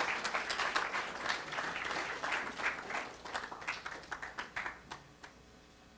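Small audience applauding, the clapping thinning out and dying away about five seconds in.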